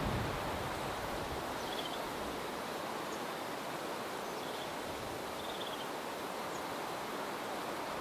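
Strong, cold north wind (bise) rushing steadily, with low buffeting on the microphone that dies away in the first second. A few faint, high chirps sound through it.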